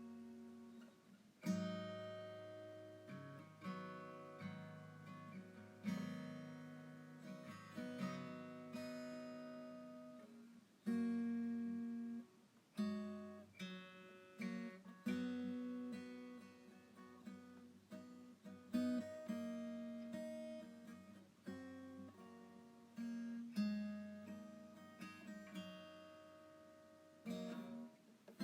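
Background music played on an acoustic guitar: chords struck one after another, each ringing out and fading before the next.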